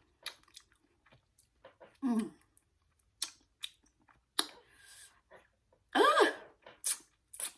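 Close-up chewing and lip-smacking of sour Kool-Aid-coated gummy fruit snacks, with many short wet mouth clicks. Two brief hummed vocal sounds break in, a falling one about two seconds in and a rising-then-falling one about six seconds in, reacting to the sourness.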